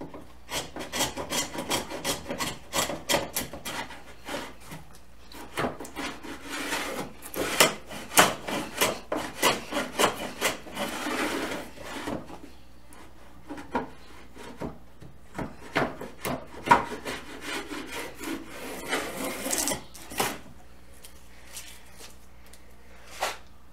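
Small hand plane cutting along the rebate edge of an old wooden door held in a bench vise, squaring it and cleaning off old paint. It makes a long run of quick, rasping strokes, briefly pausing about halfway, then thinning out to a few lighter strokes near the end.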